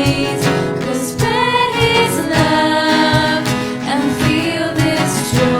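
A worship band and singers perform an upbeat Christmas song, with voices holding and sliding between notes over a steady drum beat.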